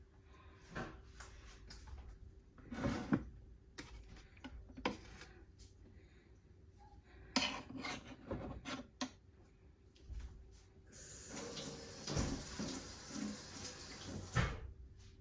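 Kitchen clatter of dishes and utensils clinking and knocking, with a tap running for a few seconds near the end.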